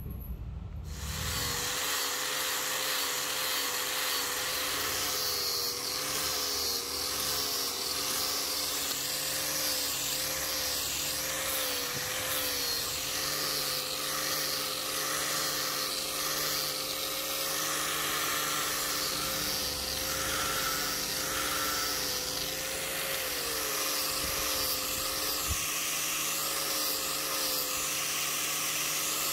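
Small electric power tool running steadily against wood, starting about a second in, its motor hum wavering slightly in pitch under a dense grinding hiss as it shapes the ebony handle.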